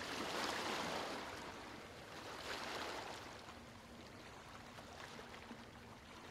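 Faint ocean waves washing in soft swells, one every two to three seconds.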